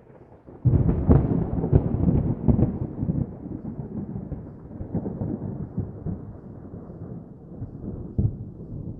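A thunderclap: a sudden crack under a second in, a few sharper cracks over the next two seconds, then a long low rumble that slowly fades away, with one more crack near the end.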